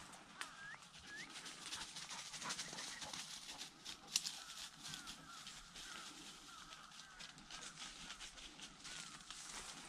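Footsteps and dry Japanese silver grass and twigs crackling and rustling against the body while walking through dense dead cover, with a sharper snap about four seconds in. A few faint high chirps sound near the start and in the middle.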